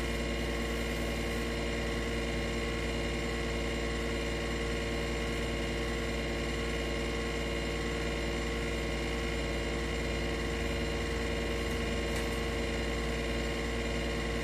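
Steady mechanical hum of a running room appliance, holding several fixed tones without change.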